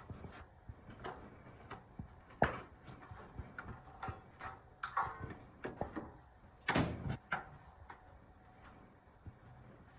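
Irregular knocks, clicks and short scrapes of hard objects being handled, the loudest a sharp knock about two and a half seconds in and a longer scrape around seven seconds.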